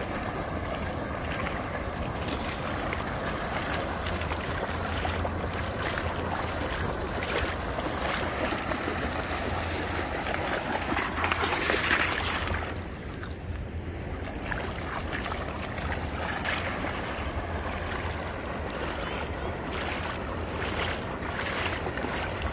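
Dogs running and splashing through shallow seawater, over a steady wash of wind and surf. The loudest splashing comes about halfway through, as one dog dashes through the shallows close by.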